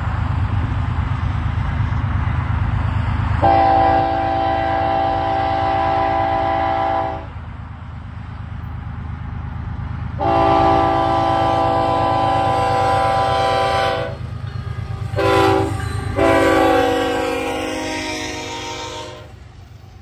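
BNSF diesel locomotives' air horn sounding the grade-crossing signal, two long blasts, a short one and a long one, over the steady rumble of the approaching engines.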